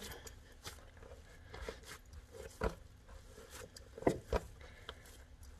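Hands kneading and squeezing a ball of seitan dough on a wooden board: soft, sticky squishing with a few light knocks against the board, the loudest about four seconds in.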